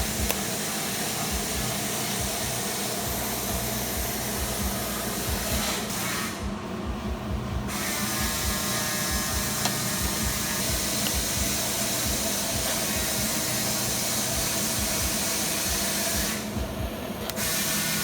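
A power tool running steadily with a hissing, full-range noise, its high end dropping away briefly twice.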